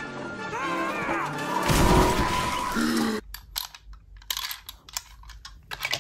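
Cartoon film soundtrack with music and a loud low rumble about two seconds in. It cuts off abruptly a little after three seconds, and then die-cast toy cars clack against each other in a plastic tub in a run of sharp, irregular clicks.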